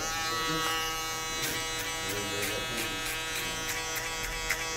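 Electric shaver buzzing steadily as it grazes the skin to erase the last of a skin-fade line. The buzz comes in suddenly at the start, over background music with a steady beat.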